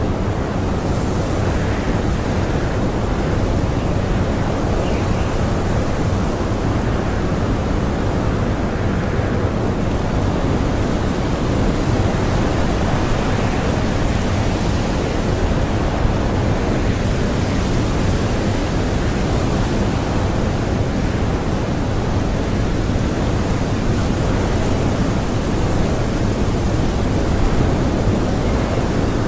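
Blizzard wind blowing steadily: a dense, unbroken rush, heaviest in the low end, with no gusts standing out.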